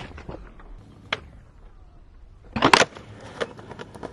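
Skateboard deck and wheels clacking on pavement: a sharp snap about a second in, then a loud clattering landing near three seconds, over a low rolling rumble.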